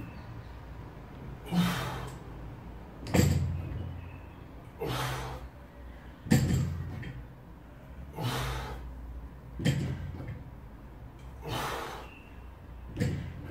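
A lifter's sharp, forceful breaths through a set of sumo deadlifts, with the bumper-plated barbell thudding down on the rubber floor at each rep, roughly every three seconds, about four reps in all.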